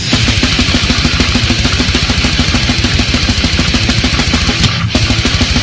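Loud heavy metal music with a fast, even drumbeat, briefly dropping out about three-quarters of the way through.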